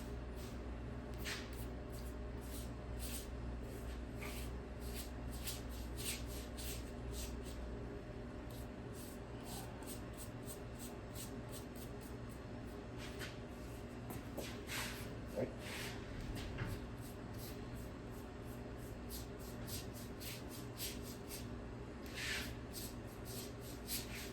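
Light, irregular clicks and taps of hands and utensils working fresh ravioli on a work surface, over a steady low hum.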